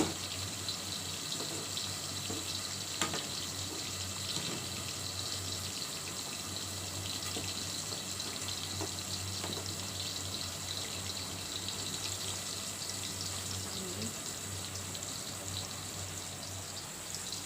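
A pot of vegetables boiling on the stove: a steady bubbling hiss with scattered small pops and clicks, one sharper click about three seconds in.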